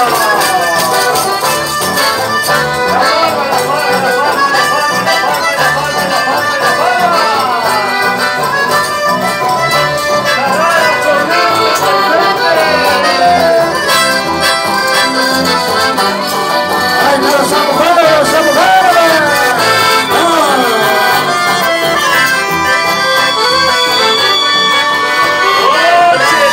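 Live amplified band music led by accordion, with electric bass and guitars keeping a steady dance beat.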